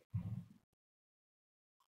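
A man's short voiced hesitation murmur, about half a second long at the start, then dead silence.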